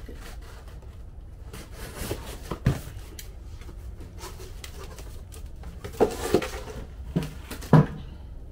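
Cardboard being handled and laid down, with scattered rustles and scrapes and a few sharp thuds, the loudest near the end.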